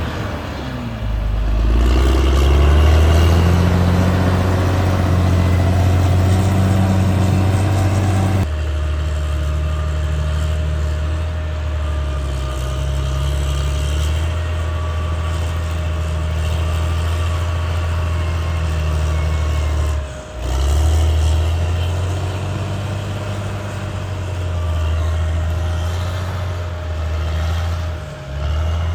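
Caterpillar D6R XL bulldozer's diesel engine running under load, revving up about a second in and then holding a steady, heavy drone, with brief breaks where the sound jumps.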